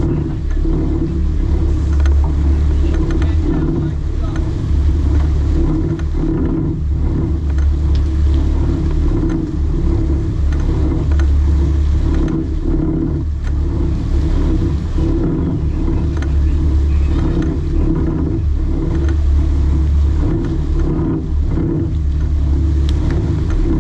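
Sport-fishing boat's engine running with a steady, loud low rumble while the boat holds a marlin alongside.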